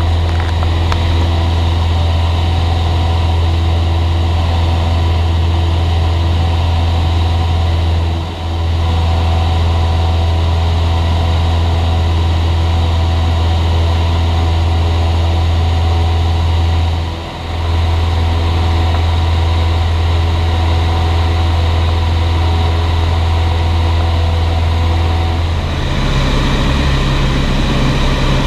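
Jodel DR1050 light aircraft's Continental O-200 four-cylinder engine and propeller running steadily in cruise flight, a loud, even, low drone. It dips briefly about eight and seventeen seconds in, and its pitch shifts a little higher near the end.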